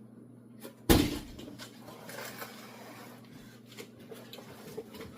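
A juicer being unpacked and handled: one hard knock about a second in, as of it being set down on a hard surface, then rustling of packaging with a few small plastic clicks.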